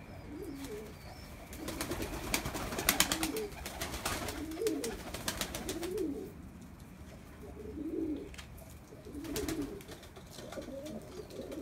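Domestic pigeons cooing over and over, each coo a low rise and fall. Clusters of sharp clicks or taps come about two to five seconds in and again near the end, and they are the loudest sounds in the stretch.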